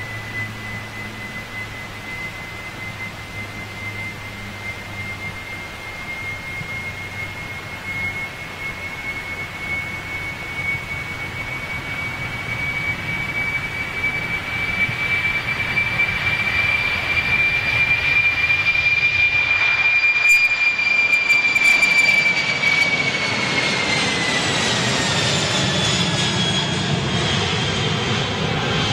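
Boeing 747-400's four jet engines at takeoff power as it rolls down the runway and climbs away. The noise builds steadily to its loudest about three-quarters of the way through. A high engine whine creeps up slightly, then falls in pitch as the jet passes.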